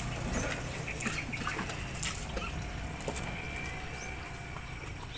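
Faint wet slaps and clicks of large whole fish being handled and shifted on a wet concrete floor, over a low steady rumble.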